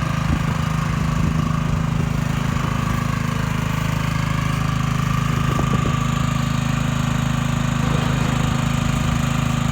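Small Honda gasoline engine running steadily at a constant speed, driving the chute's hydraulic pump, with a thin steady whine above its low hum.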